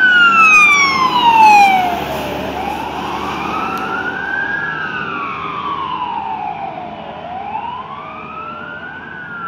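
Fire truck siren wailing, its pitch rising and falling in slow sweeps of about four to five seconds each. Loud as the ladder truck passes, then about two seconds in it drops away and goes on more faintly as the truck drives off.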